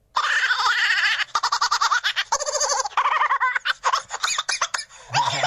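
A cartoon sound effect played from a phone app: a fast run of high, chattering, giggle-like squeaks that warble up and down in quick pulses.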